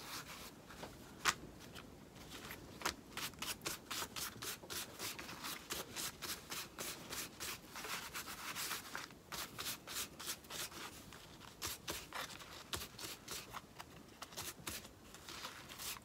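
Small brush scrubbing brown wax top coat onto a cloth flower's fabric petals: a long run of short, quick, soft brushing strokes.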